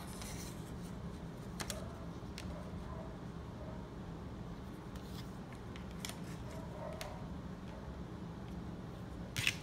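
A few faint, scattered clicks of wooden craft sticks being picked up and set down on a tabletop, over a steady low background hum.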